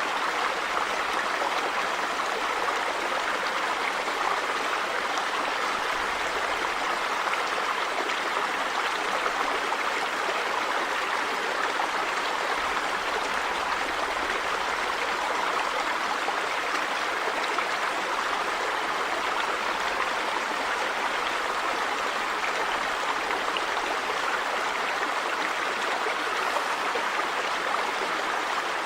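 River water running over rocks, a steady rushing and gurgling that holds constant throughout.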